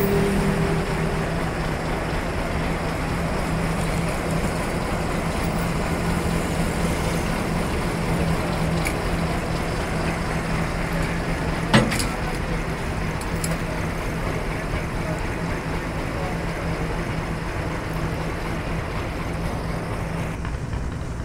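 Heavy diesel engine running steadily at idle, with a single sharp metallic knock about halfway through.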